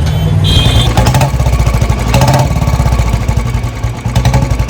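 Royal Enfield Bullet 350's single-cylinder engine running with a steady, dense thump, with a short horn beep about half a second in.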